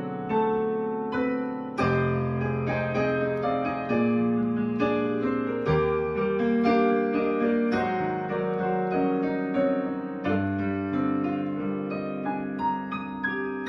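Yamaha digital piano playing a slow jazz ballad: full chords struck every second or two and left to ring, with lighter single high notes near the end.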